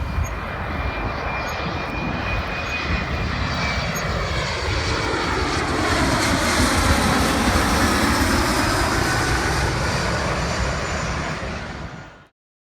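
Airplane passing low overhead on its landing approach: a steady engine rush that swells to its loudest about six to eight seconds in, then eases off before the sound cuts off suddenly near the end.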